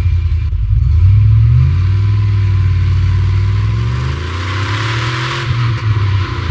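Range Rover L405 engine running, its pitch rising gradually over a few seconds and then dropping back near the end.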